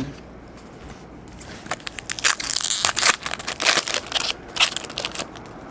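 Foil wrapper of a 2011 Topps Chrome baseball card pack being torn open and crinkled by hand: a dense run of crackling from about a second in that stops shortly before the end.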